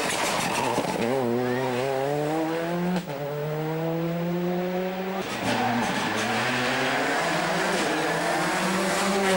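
A World Rally Car's turbocharged four-cylinder engine accelerating hard. Its pitch climbs, drops sharply at a gear change about three seconds in, then climbs again. It dips briefly just after five seconds and pulls on once more.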